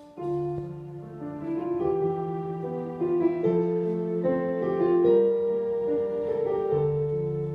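Keyboard playing a slow run of held chords and melody notes, the instrumental opening of a worship song.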